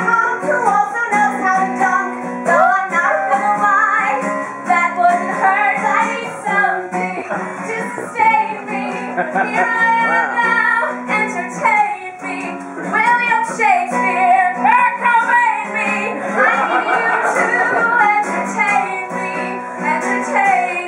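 Singing with guitar accompaniment: a sung melody over held, strummed guitar chords.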